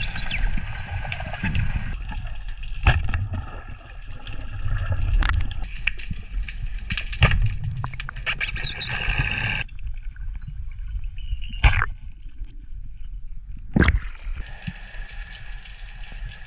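Underwater sound through a diver's camera: water rushing and gurgling over a low rumble, broken by several single sharp clacks of a multi-band speargun firing.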